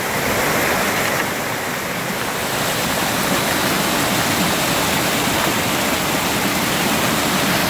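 Mountain stream pouring over rocks in a small waterfall: a loud, steady rush of white water close by.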